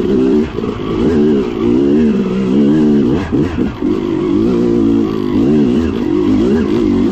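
Dirt bike engine revving up and down as the rider works the throttle, its pitch rising and falling continually, with a brief drop and quick pick-up in revs a little past three seconds in.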